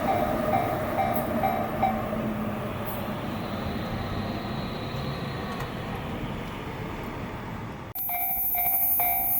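An E235 series Yamanote Line electric train passing a level crossing: steady rumble of wheels on rail, with the crossing's warning bell dinging about two and a half times a second for the first two seconds, then stopping. The train noise slowly fades, and about eight seconds in the sound cuts abruptly to a crossing bell ringing again over quieter surroundings.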